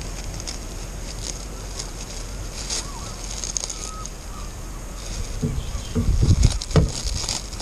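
Plastic cling film being pulled off its roll and wrapped around a metal bar, crinkling in short bursts. A few low thumps near the end are the loudest part.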